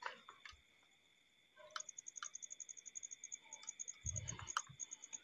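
Faint chirping of insects at night: a rapid, even string of very high pulses starting about two seconds in, over a steady high whine. A few soft thumps near the end.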